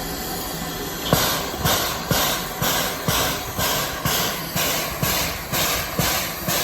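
Lima-built Shay geared steam locomotive hissing steam, then puffing rhythmically from about a second in, an even beat of roughly two sharp puffs a second.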